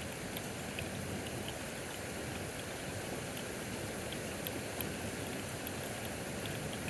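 Steady heavy rain falling, with scattered drops ticking sharply on a nearby surface; two louder ticks come about four and a half seconds in.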